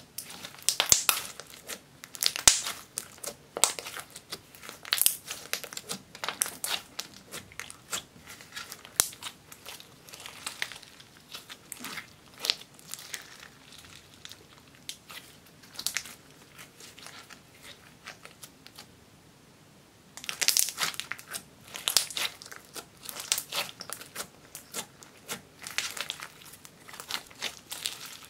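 Thick silver slime being kneaded and stretched by hand, giving dense wet clicks and crackles. The crackling eases for a few seconds past the middle, then picks up again.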